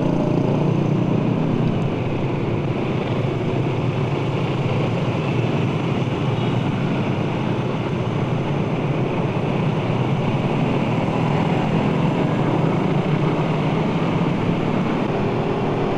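Suzuki Satria F150 single-cylinder fuel-injected engine running steadily as the motorcycle rides at low speed in traffic, with wind noise over the microphone.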